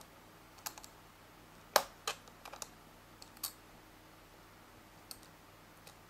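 Small precision screwdriver clicking against the screws of a MacBook Pro's aluminium bottom case as they are unscrewed: light, irregular clicks, the loudest a little under two seconds in.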